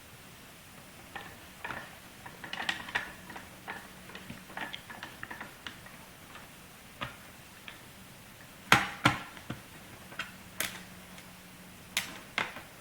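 Small screwdriver backing a screw out of a laptop's plastic case: a run of irregular light clicks and ticks, with a few sharper clicks in the second half.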